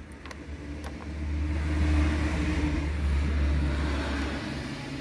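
A car driving past, its low rumble and tyre hiss swelling about a second in and easing off near the end. A few metal clicks come at the start from a spline bit on the steering-wheel nut.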